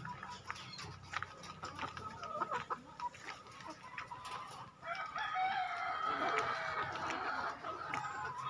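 A flock of caged Lohmann laying hens clucking and calling: scattered short calls at first, then a louder chorus of many overlapping calls from about five seconds in.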